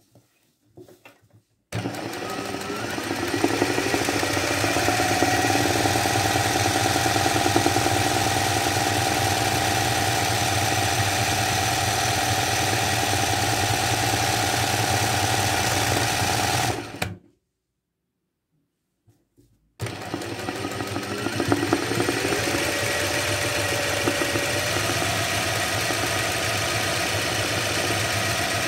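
Sewing machine stitching free-hand satin-stitch embroidery. The motor starts about two seconds in, speeds up and runs at a steady fast pace, stops for a couple of seconds about two-thirds of the way through, then starts again and speeds up.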